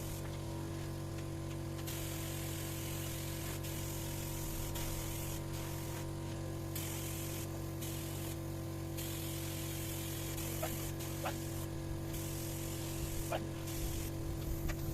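Lacquer being sprayed onto chair wood, a hiss that starts and stops several times in bursts of one to a few seconds, over a steady hum.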